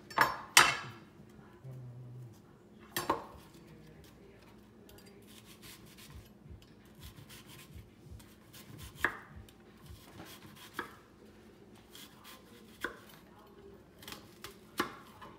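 Chef's knife cutting an onion on a wooden cutting board: sharp knocks of the blade reaching the board at uneven intervals, the loudest in the first second, with lighter slicing ticks in between.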